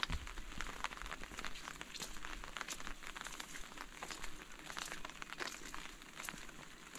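Steady rain falling, with many close drops ticking irregularly. There is a brief low thump right at the start.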